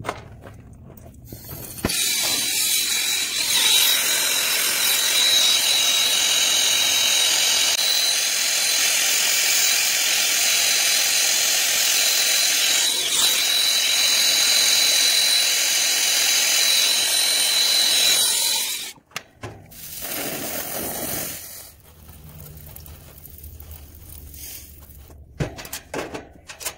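Brazing torch flame hissing steadily with a faint high whistle while copper joints on a heat pump reversing valve are brazed. It comes on about two seconds in and cuts off after about sixteen seconds, followed by a shorter, softer rush of noise.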